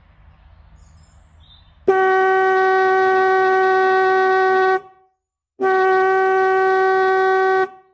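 Original 1955 Chevrolet electric vibrator horn, powered from a battery on the bench, sounding two steady honks of one pitch: one of about three seconds starting about two seconds in, then after a short gap one of about two seconds. The horn works: its coil is pulling the diaphragm and its contact points are arcing.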